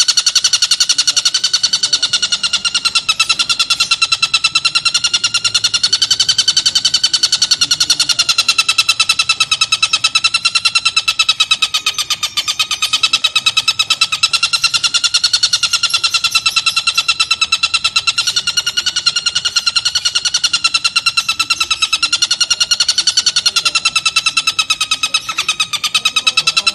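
Oriental dollarbird (tengkek buto) giving a continuous harsh, rapid rattling chatter, its pitch wavering slightly, without a break.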